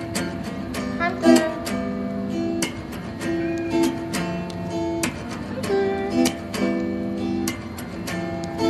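Background music: acoustic guitar, plucked and strummed with regular sharp strums.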